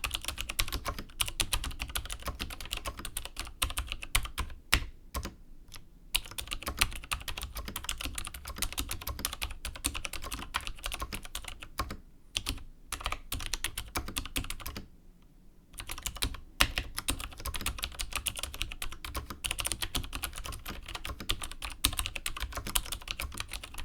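Steady typing on a vintage Chicony KB5581 keyboard with Cherry MX Dark Blue tactile switches: rapid key clicks, with short pauses about five, twelve and fifteen seconds in.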